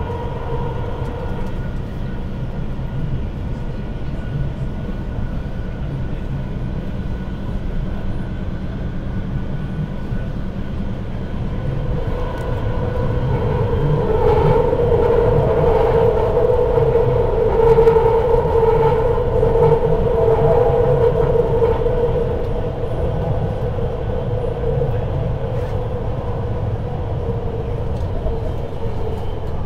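BART train car heard from inside while running at speed: a continuous low rumble of wheels on track with a steady whining tone. The whine swells louder about halfway through, then eases back.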